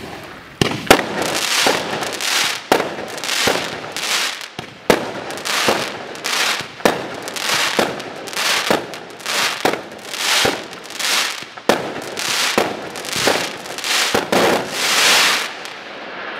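Zeus Fireworks Trojan Spirit, a compound of four 25 mm 25-shot cakes, firing in a steady run of sharp shots a little faster than one a second. Each shot is followed by a hissing wash as the blinking mines and star breaks burst overhead. Near the end the shots stop and a longer hiss fades out.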